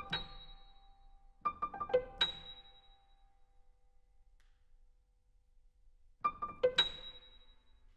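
Grand piano playing short, sharp flurries of notes, each ending with a very high note left to ring and fade. The flurries come right at the start, about one and a half seconds in, and about six seconds in, with near silence between the last two.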